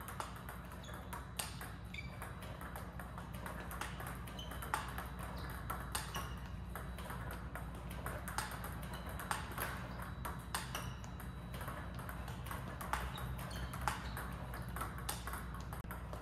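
Table tennis balls clicking repeatedly off the table and a player's paddle in a fast robot-fed rally, the shots coming at irregular spacing. A steady low hum runs underneath.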